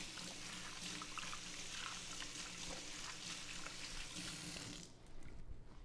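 Kitchen sink tap running as a hand is rinsed under it. The water is shut off abruptly near the end.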